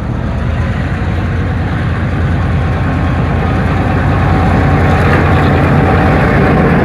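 EMD G22 diesel-electric locomotive engine running under load while shunting, a deep rapid throb that grows steadily louder.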